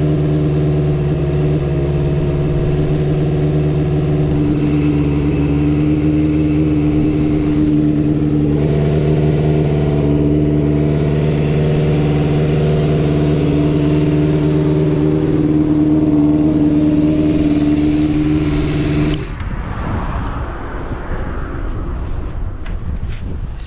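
Suzuki Bandit 250V's inline-four engine, breathing through a Pretty Racing short exhaust, idling steadily with no abnormal noise, as the seller states. It cuts off abruptly about nineteen seconds in, leaving fainter rustling and a few clicks.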